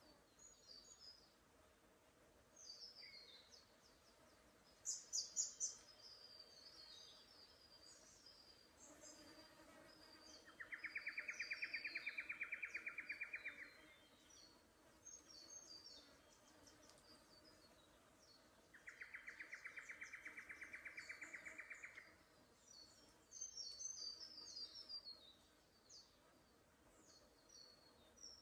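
Small forest birds chirping and twittering on and off throughout. Twice, around the middle, comes a rapid pulsing trill of about three seconds, lower in pitch than the chirps and the loudest sound.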